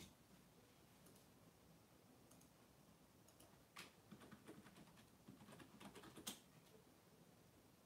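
Near silence with faint room hiss, broken by a short run of soft, quick clicks and taps about four to six seconds in, the last one a little sharper.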